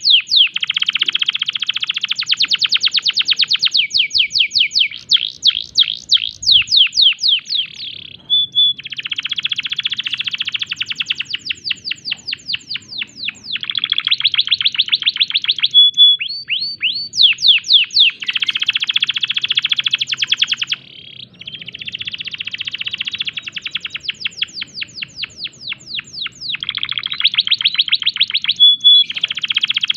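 Male domestic canary in breeding condition singing hard: a continuous song of phrases made of fast rolling trills, rapid downward-sweeping notes and short clear whistles, with only brief pauses between phrases.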